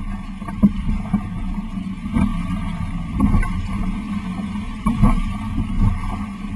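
Laser Bahia sailing dinghy's hull running fast through chop, with rushing water and irregular dull thumps, about one a second, as it slaps into waves.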